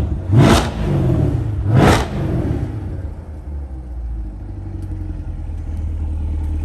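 C8 Corvette's V8 with high-flow sport cats, exhaust valves open, blipped twice about a second and a half apart, its pitch falling back after each blip. It then settles into a steady idle.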